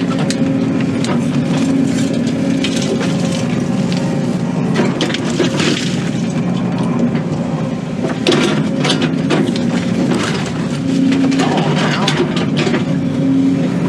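Excavator diesel engine running steadily under load while the machine digs, with scattered cracks, knocks and crunches from the bucket working into dirt and debris.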